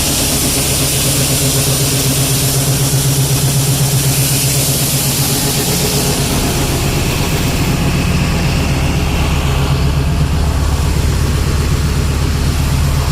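Grain truck's engine idling steadily, with a steady hiss above it that fades about six seconds in while the engine's low note grows stronger.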